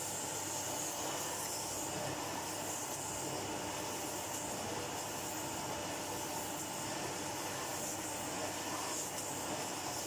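1980 Electrolux 345 cylinder vacuum cleaner running, its suction motor giving a steady, unchanging rush of air.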